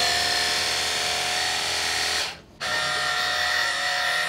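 Cordless pressure washer's pump motor running with a steady whine under the hiss of its wide fan spray. It cuts out for a moment a little over two seconds in and then starts again.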